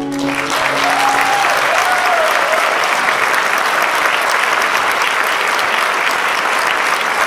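Audience applauding and cheering at the end of a song, the last chord from the stage fading out in the first second or so. A single wavering cheer rises over the clapping about a second in.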